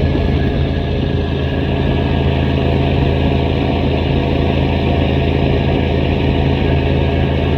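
Rebuilt Cummins 855 (14-litre) inline-six diesel propulsion engine of a fishing trawler, running steadily and loudly at an even speed.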